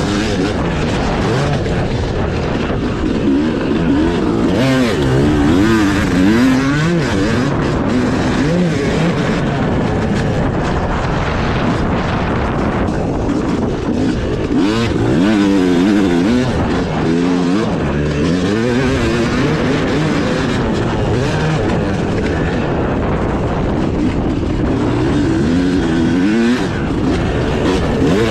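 Yamaha YZ250 two-stroke motocross bike engine being ridden hard, its pitch rising and falling over and over as the throttle is opened and closed through the track's turns and jumps.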